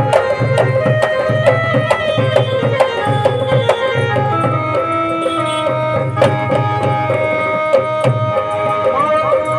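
Instrumental interlude of a qawwali: hand-played dholak drums keeping a quick, steady rhythm of sharp strokes under a held melody line.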